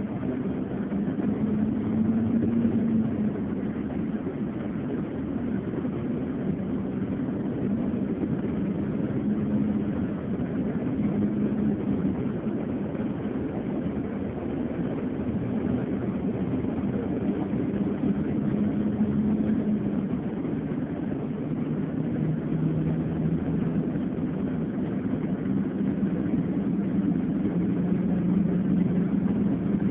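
Engine and road noise inside a moving bus's cabin: a steady drone with a low engine hum that drifts up and down in pitch as the bus changes speed.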